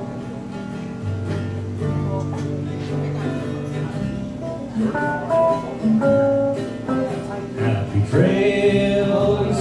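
A live band plays an instrumental passage: acoustic guitar strumming over upright bass, drums and a Roland FP-4 digital piano. A man's lead vocal comes in about eight seconds in.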